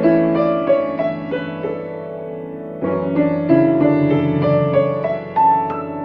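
Grand piano playing a slow new-age piece: chords and melody notes held and left to ring, with a new chord struck about three seconds in and a high note sounding near the end.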